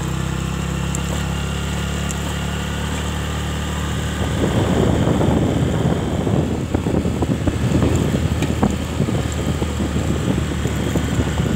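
Vehicle driving on an unpaved gravel road: a steady engine hum for the first few seconds, then from about four seconds in a rough, uneven rumble of the tyres running over loose gravel.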